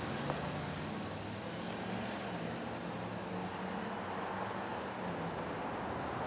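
A motor vehicle's engine running, a low steady drone over traffic noise that eases off about five seconds in.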